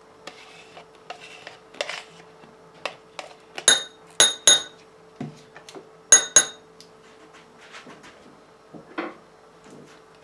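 A metal spoon clinks and scrapes against a bowl as plain yogurt is spooned in for the dip. About five sharp, ringing clinks come in two pairs near the middle, with softer taps and scrapes around them.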